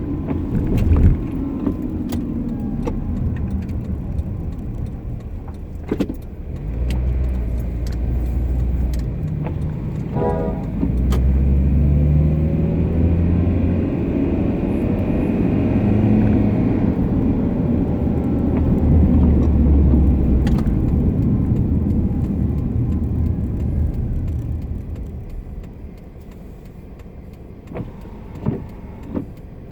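Car interior road and drivetrain noise with a whine that rises and falls with speed, from a failing differential and a worn wheel hub bearing. A few sharp clicks sound along the way, and the noise gets quieter near the end.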